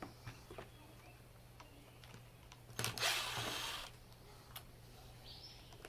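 A power drill run in one short burst of about a second near the middle, over quiet clicks of parts being handled.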